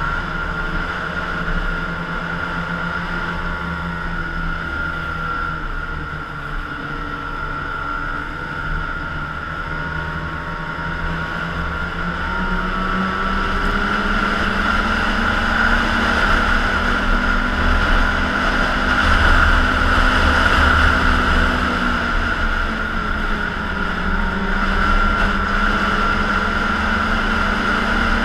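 Snowmobile engine running steadily while riding along a trail; about twelve seconds in the engine note steps up in pitch and gets somewhat louder.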